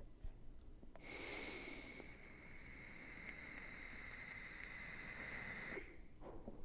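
A steady hiss with a thin high whistle running through it. It starts about a second in and stops abruptly about five seconds later.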